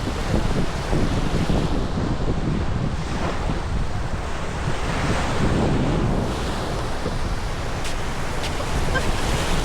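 Gulf surf breaking on a beach, swelling and easing every couple of seconds, with wind buffeting the microphone.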